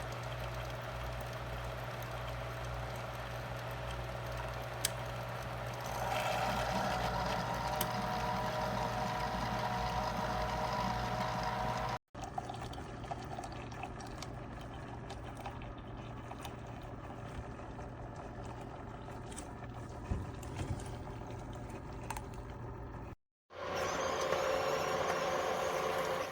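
CHULUX single-serve pod coffee maker brewing, with a steady low pump hum and hot water trickling into the cup. It gets louder about six seconds in and cuts out abruptly twice.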